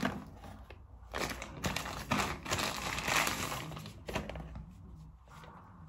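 Thin white protective packaging wrap crinkling and rustling as it is pulled off a new camera, in irregular bursts that die down about four seconds in.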